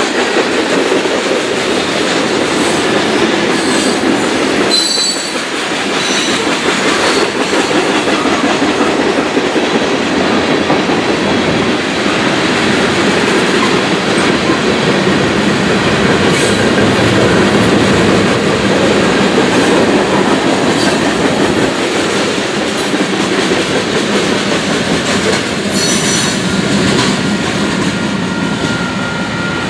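Freight train of covered hopper cars rolling past, a steady rumble of steel wheels on rail, with brief high-pitched wheel squeals a few times.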